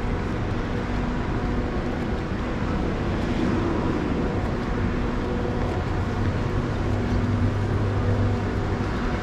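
Steady urban traffic noise with a low hum, which swells for a couple of seconds in the latter half.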